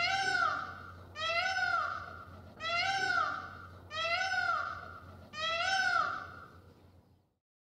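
Peacock calling: five loud, wailing calls evenly spaced about 1.2 s apart, each one rising and then falling in pitch.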